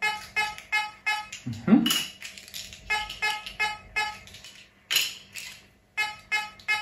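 Fisher F44 metal detector giving short, repeated beeps in quick groups of two to four as silver coins are swept past its coil, with a couple of sharp clicks in between.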